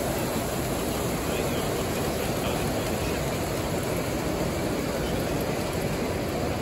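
Steady, even background hubbub of a crowded exhibition hall, with many voices blurred into a constant wash and no single voice standing out.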